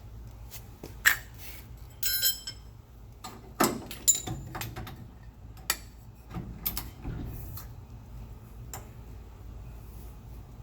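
Socket and torque wrench on a shock absorber mounting bolt: a string of sharp metallic clicks and clinks, with one short ringing clink about two seconds in, as the bolt is torqued.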